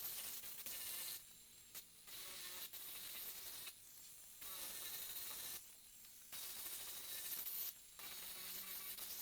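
Merlin2 mini angle grinder with a 120-grit sanding disc working wood: a high, hissy whine in repeated passes of one to two seconds, dropping away briefly between passes.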